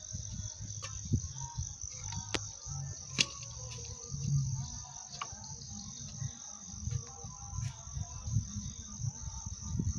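Insects chirring in one steady high-pitched drone, with a low rumble underneath and a few sharp clicks in the first few seconds.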